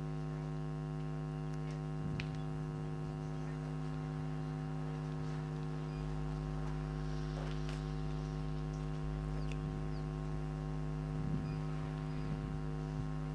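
Steady electrical mains hum from an open sound system, a stack of buzzing tones, with a few faint ticks.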